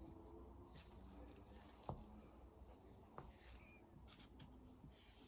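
Near silence with two short clicks, about 2 s and 3 s in: small plastic acrylic paint containers being handled and set down.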